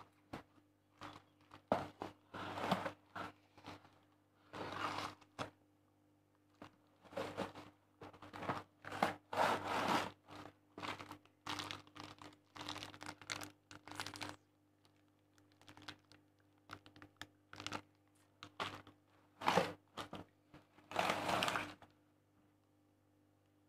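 A cardboard parcel being torn open by hand and a plastic bag of Christmas decorations pulled out: tearing cardboard and crinkling plastic in irregular bursts, with sharp clicks.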